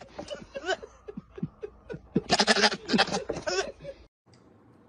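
Goat bleating in a run of short, wavering calls, the loudest a couple of seconds in; the calls stop abruptly about four seconds in.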